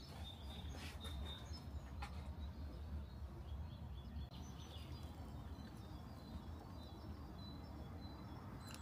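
Outdoor woodland ambience: faint, short bird chirps over a steady low rumble, with a few soft clicks in the first couple of seconds.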